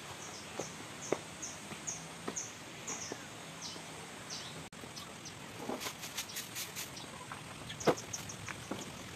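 A bird calling: a quick run of short, high, down-slurred chirps, about three a second, then two longer down-slurred notes. Scattered light taps and scuffs sound under it, thickening about six seconds in, with one sharper tap near the end.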